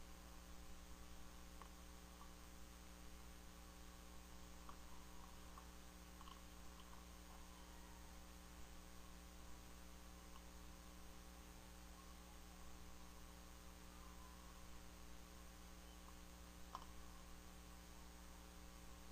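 Near silence: a faint steady electrical hum with a few faint ticks.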